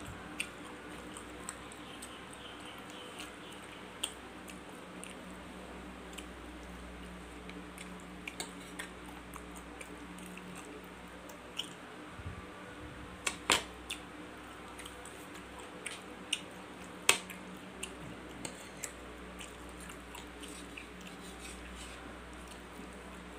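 Stainless knife and fork clinking and scraping on a plate as fried meatballs are cut, in scattered sharp clicks with a few louder clinks about halfway through and again a few seconds later, alongside soft chewing. A faint steady low hum runs underneath.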